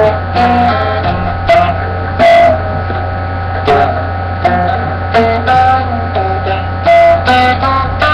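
A plucked string instrument played note by note, single notes and small chords picked at an uneven pace and left to ring, over a steady low hum.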